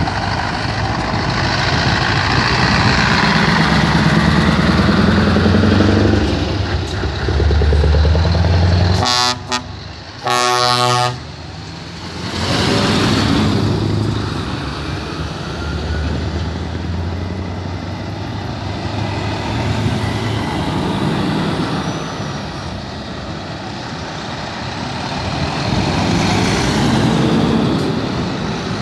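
Scania heavy trucks' diesel engines pulling away and driving past one after another. A truck air horn sounds two blasts, a short one about nine seconds in and a longer one about a second later.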